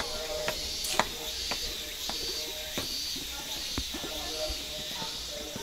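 Footsteps on a hiking trail, about two steps a second, over a steady high pulsing buzz like insects droning.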